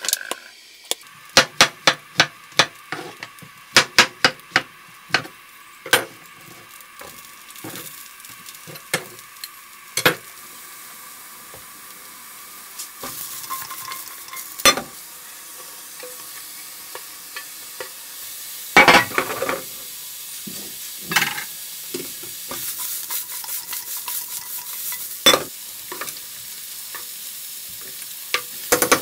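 Fresh tagliatelle and spinach pesto sizzling in a hot frying pan as they are stirred and tossed, with a utensil knocking against the pans. A quick run of sharp clicks comes in the first ten seconds; after that the sizzle goes on steadily, with occasional knocks and a short scrape.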